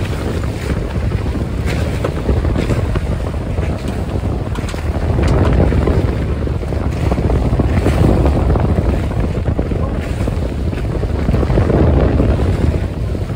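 Wind buffeting the microphone aboard a boat under way, a loud steady low rumble, with the wash of water alongside.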